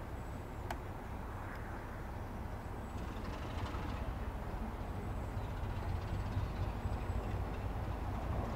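Diesel locomotives, a Class 73 and a Class 33, working a train, their engines a low rumble that slowly builds in loudness. A single short click just under a second in.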